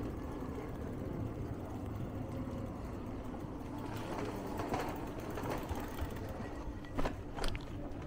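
Electric bike rolling over paving stones and brick setts: a steady low rumble of tyre and road noise, with two sharp knocks about seven seconds in.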